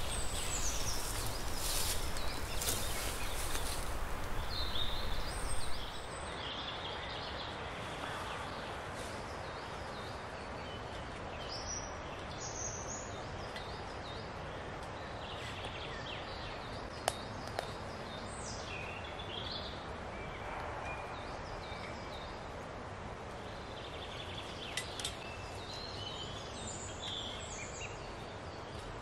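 Outdoor forest ambience: a steady background hiss with scattered short bird chirps. A louder noise fills the first six seconds and stops abruptly, and there is a single sharp click about seventeen seconds in.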